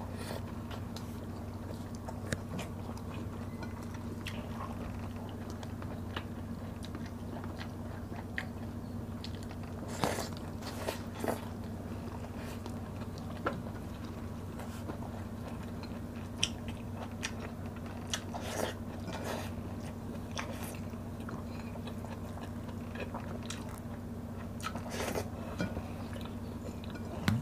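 Close-miked eating by hand: chewing and mouth smacks, with scattered crunches and short clicks, a few louder ones mid-way and near the end, over a steady low hum.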